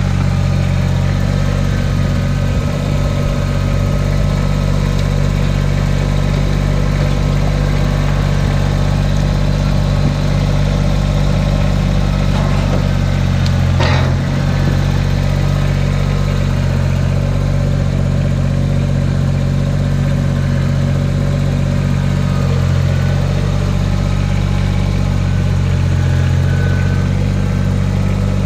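Kubota BX25 compact tractor's three-cylinder diesel engine running steadily while the front loader works, with one sharp knock about halfway through.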